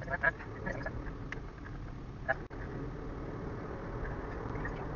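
Steady low rumble of a car's engine and road noise while driving, with a brief snatch of voice at the start and another about two seconds in.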